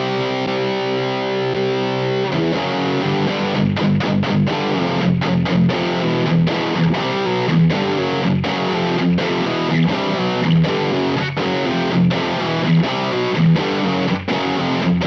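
Distorted electric guitar played through a Teisco distortion pedal. A chord rings out for about two seconds, then a chugging riff follows with regular accented hits.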